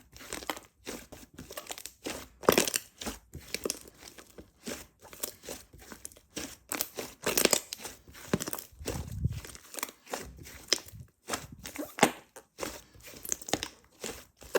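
Slime being squished and stretched by hand, making an irregular run of short sticky crackles and pops, with a soft low thump about nine seconds in.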